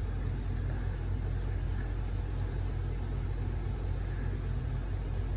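Steady low rumbling hum, unchanging throughout.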